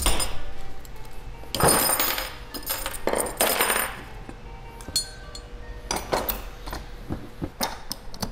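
Hand tools on a turbocharger's metal housing: two runs of socket-wrench ratchet clicking as the housing bolts are undone, then scattered metal clinks and knocks of bolts, clamp plates and pliers against the turbo and the bench.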